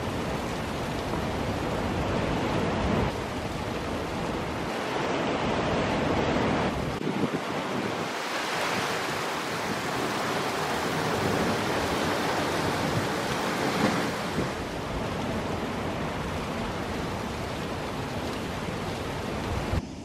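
Steady rush of water with wind blowing across the microphone; the low wind rumble eases for a couple of seconds around the middle.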